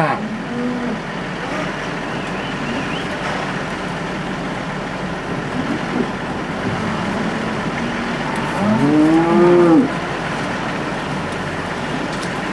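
A dairy cow moos once, a long loud call about eight and a half seconds in, over steady background noise.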